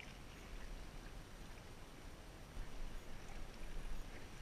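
Outdoor seaside ambience: sea water washing against the rocks below, with wind rumbling on the microphone. The wind grows louder and gustier just after halfway, and there are a few faint ticks.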